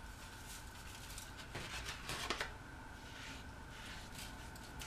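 Faint rustling and a few light crinkles as spice mix is sprinkled and rubbed by hand onto a raw chicken in a foil-lined baking dish, over a faint steady hum.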